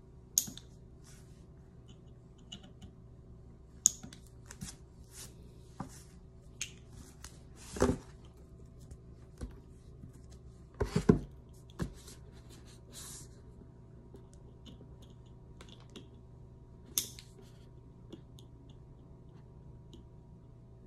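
Scattered small clicks and taps from handling nail-care tools and a cardboard box at a table, with a longer rustling knock about eight seconds in and a quick cluster of knocks around eleven seconds.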